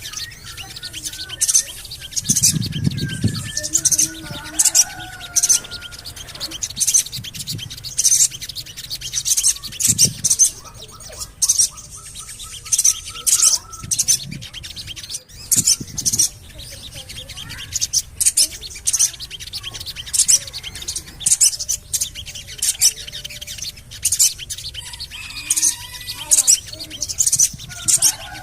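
Sogon bird calling: a steady string of short, high 'cuit' chirps, about one or two a second, with softer warbling notes lower down. This is the call used as a lure to set other sogon birds singing.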